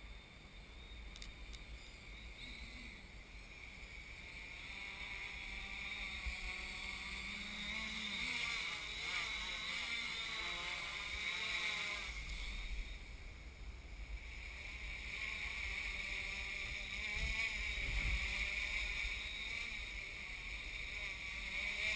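HobbyKing X666 quadcopter's four brushless motors and propellers buzzing in flight, the pitch wavering up and down as the throttle is worked. It grows louder over the first several seconds, with a low rumble of wind on the microphone in the second half.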